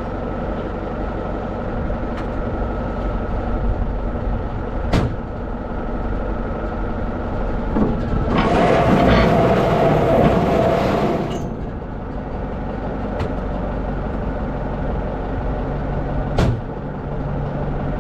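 Tractor engine running an old, long-idle square baler through its PTO, the baler's mechanism turning over for its first run. From about eight seconds in, a harsher, louder noise with a steady whine lasts about three seconds, with a couple of sharp knocks along the way. It is a little noisy, as the seized, rusty baler works itself free.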